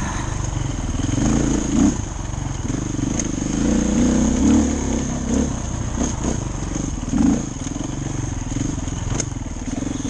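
Dirt bike engine running under the rider, its revs rising and falling with the throttle while climbing a rocky trail, with a few sharp knocks along the way.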